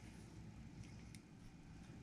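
Near silence: faint low room tone with two or three soft ticks about a second in.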